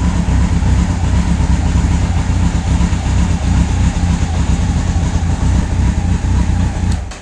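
Honda CBR1100XX Blackbird's inline-four engine idling steadily just after start-up on fresh oil, run briefly to build oil pressure. It is switched off and cuts out suddenly near the end.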